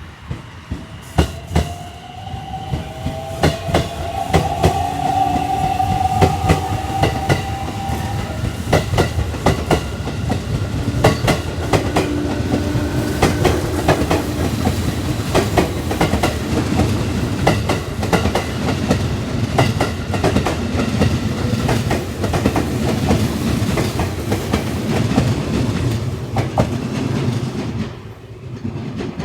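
Electric train running along the platform, its wheels clacking rhythmically over rail joints, with a whine rising in pitch during the first several seconds. The noise fades away near the end.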